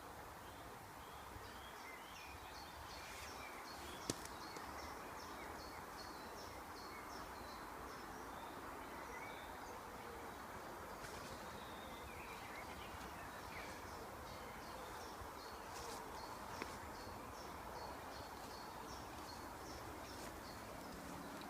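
Woodland ambience: small birds calling with many short, high chirps over a steady background hiss, with two faint sharp clicks.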